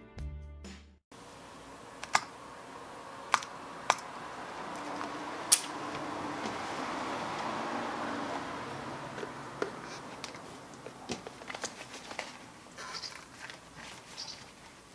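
Hands working black vinyl covering around a plastic holder frame: a soft rustle of the material with scattered clicks and taps of fingers and plastic. Background music ends about a second in.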